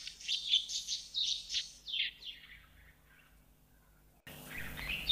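Small birds chirping in quick, high twitters for about two seconds, then a lull, with more chirping starting again near the end.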